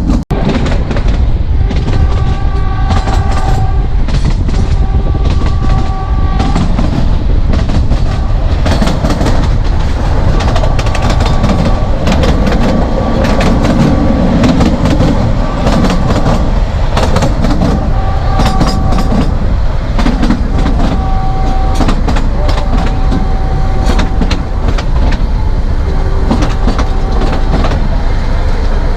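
Narrow-gauge train running, heard from on board: a steady rumble with the wheels clicking over rail joints, and a pitched tone that comes and goes every few seconds.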